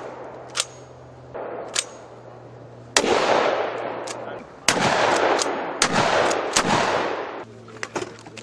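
Shots from M26 MASS 12-gauge shotguns on a firing range: two fainter reports early on, then four loud blasts from about three seconds in, each followed by a long rolling echo. A few sharp clicks come near the end.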